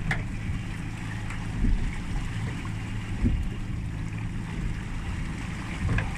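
A boat's engine running steadily with a low hum, under wind and water noise.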